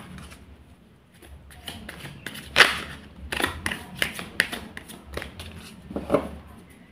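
Tarot cards being shuffled and handled by hand: an irregular run of short, crisp card flicks and taps, the loudest about two and a half seconds in.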